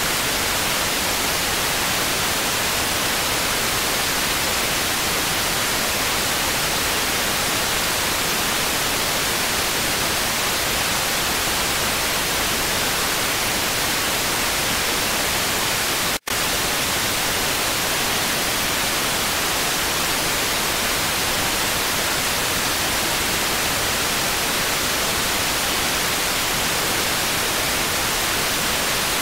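Steady static hiss, an even, unchanging noise with no commentary or crowd sound in it, broken by a split-second dropout about sixteen seconds in.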